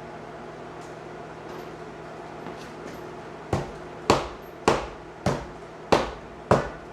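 Six hammer blows on metal, evenly spaced a little over half a second apart, each ringing briefly, over a steady mechanical hum.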